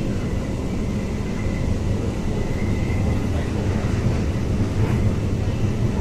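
Kolkata Metro train running along an elevated track, heard from inside the carriage: a steady low rumble of the train in motion, with a faint high whine in the first half.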